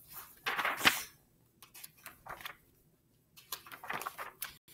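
Paper rustling and soft handling noise from a picture book being turned around and opened, with short bursts about half a second to a second in and again near the end.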